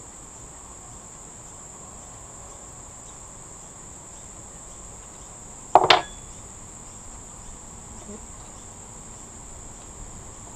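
Steady high-pitched chirring of crickets, with one sharp clank about six seconds in, the loudest sound, as metal is handled on the engine's timing-belt end.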